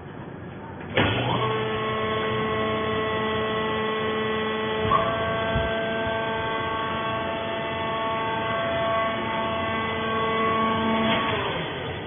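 The hydraulic power unit of a vertical plant-fibre baler starts abruptly about a second in and runs with a steady, even hum while the pressing platen is raised. It dips in pitch and winds down near the end.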